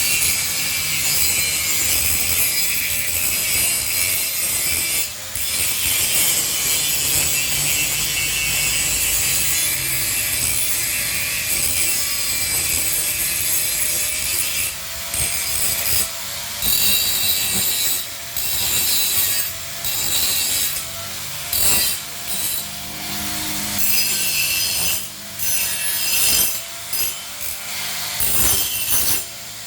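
Angle grinder grinding and smoothing welded metal to clean it up and bring out a shine: a harsh, steady hiss over the motor's whine. From about halfway on it is broken into shorter passes, with many brief dips as the disc lifts off and goes back onto the metal.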